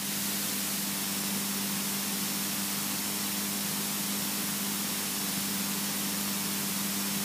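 Steady in-flight cabin noise of a Robin DR400 light aircraft: an even hiss of airflow and engine noise with a steady low hum, holding constant throughout.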